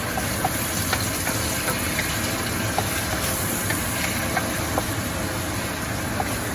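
Chicken sautéing in a pot with freshly added fish sauce: a steady sizzling hiss with scattered small pops.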